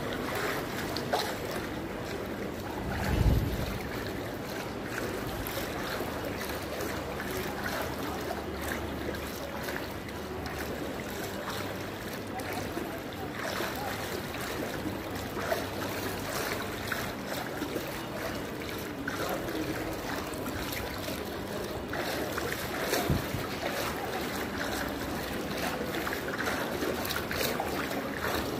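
Floodwater sloshing and splashing over a steady rush of noise, with wind on the microphone and a low thump about three seconds in and again near the end.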